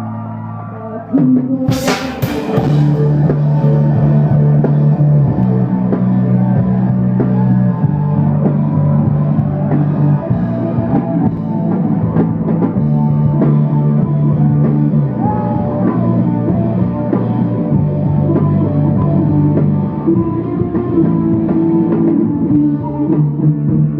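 Rock band playing live: a held chord fades out, then about a second in drums, electric guitar and bass come in together with a cymbal crash. The bass holds each note for two or three seconds before stepping to the next.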